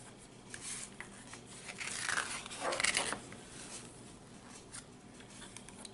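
A black plastic sushi-roll mold being handled: a few faint clicks, then a rustling scrape lasting about a second and a half, two to three seconds in.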